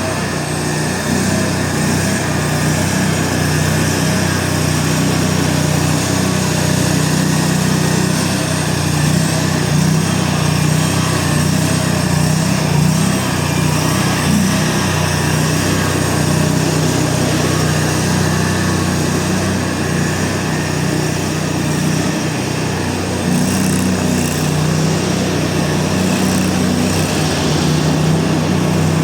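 Small skid steer loader's 23-horsepower engine running steadily under operation, with a slight change in engine note about 23 seconds in.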